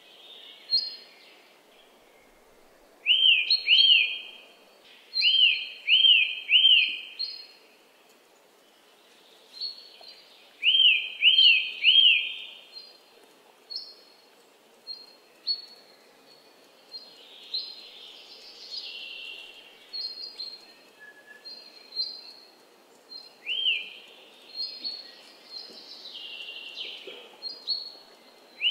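Wild birds calling in a wetland. One bird gives loud runs of three or four quick notes, each rising then falling, repeated every few seconds, with short high chirps from other birds between.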